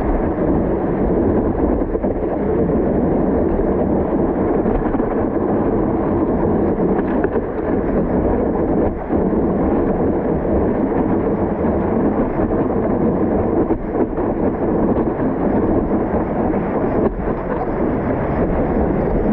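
Steady, muffled rush of water and wind noise on a camera mounted on the nose of a stand-up paddleboard as it rides a small breaking wave.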